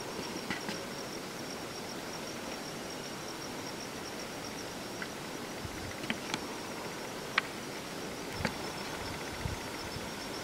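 Steady hissing outdoor ambience with a faint, steady high-pitched insect trill, broken by a few sharp clicks, the loudest about seven seconds in.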